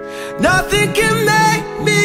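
Song soundtrack with a sung vocal: held chords, then a singer's phrase comes in about half a second in.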